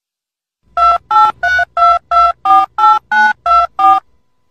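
Telephone keypad tones: ten short two-note beeps, about three a second, as when a phone number is dialled.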